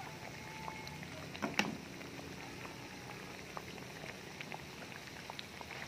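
Batter-coated banana slices deep-frying in hot oil: a steady sizzle with scattered small crackles and one louder pop about a second and a half in.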